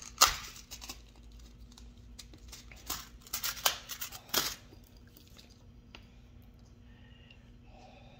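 Crinkling and snapping of a small packet of fishing hooks being handled and opened. There is a loud burst in the first second, a second cluster from about three to four and a half seconds in, and only faint handling after that.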